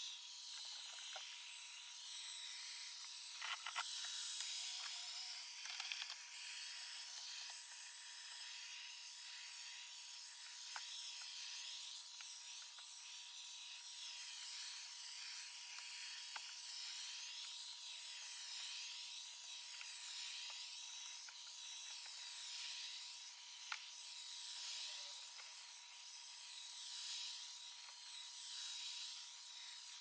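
Proscenic M7 Pro robot vacuum running on standard mode across carpet, played back sped-up: a high whirring hiss with a steady thin tone, swelling and fading every second or two, with a few faint clicks.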